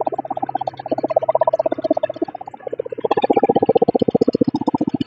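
Wood chipper's small gasoline engine running at low speed, a rapid, even pulsing that grows louder about three seconds in, while the chipper keeps spinning after being disengaged.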